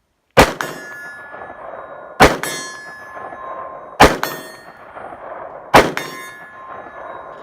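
Four unsuppressed shots from an AR-type .223/5.56 pistol with an 8-inch barrel, fired just under two seconds apart, each followed by a metallic ring that fades over about a second.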